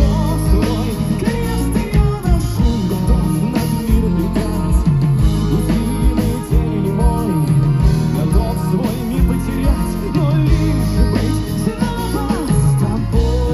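Live rock band performing a song: a male vocalist sings through the PA over violin, bass guitar and drums, with a steady beat.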